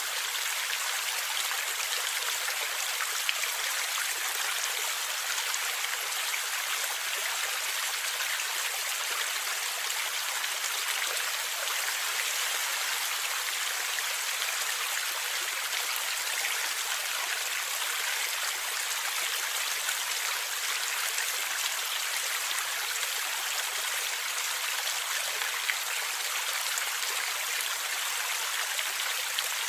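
Steady rushing and gurgling of a forest river or stream, an even wash of water noise with no change, only a few tiny splashes standing out.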